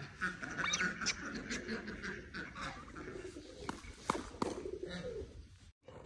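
Domestic ducks quacking among other poultry calls, with a few sharp clicks about two-thirds of the way in.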